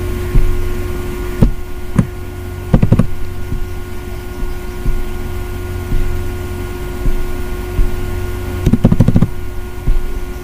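Clicks of a computer mouse and keyboard over a steady low hum with a few faint tones: single clicks about a second and a half and two seconds in, a short run near three seconds, and a quick run of clicks near nine seconds.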